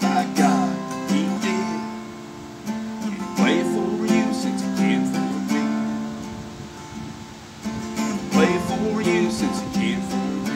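Acoustic guitar strummed in slow chords, each stroke left to ring out and fade before the next.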